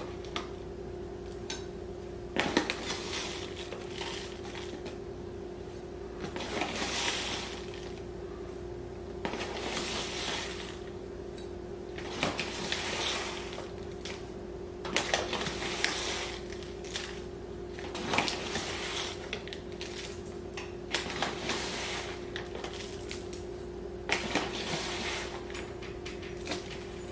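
Metal tablespoon scooping Epsom salt out of a plastic bag and tipping it into a glass measuring cup, again and again: gritty scrapes of salt with light clinks of the spoon, about every two to three seconds.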